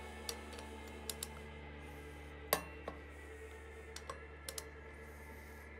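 Click-type torque wrench and socket on the rear-sprocket bolts of a Harley-Davidson wheel: scattered sharp metal clicks and clinks as the socket is seated on each bolt in turn and the wrench clicks off at its 50 ft-lb setting, the loudest click about two and a half seconds in. A steady low hum runs underneath.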